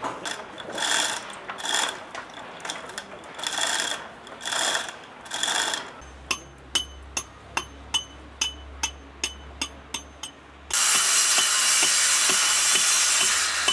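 A stonemason's toothed hand axe striking a stone block to dress its face: sharp ringing strikes, about three a second. Before them comes a run of rhythmic scraping strokes about once a second. About eleven seconds in, a loud, steady rushing noise takes over.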